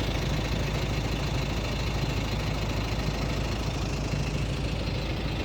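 Logging truck's engine running steadily with a low, even drone.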